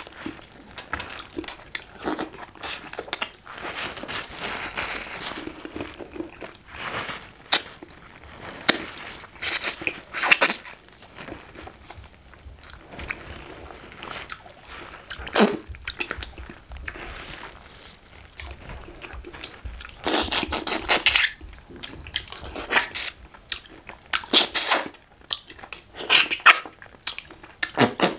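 Chewing and crunching of catfish head in banga soup, in many short, irregular bursts of mouth noise.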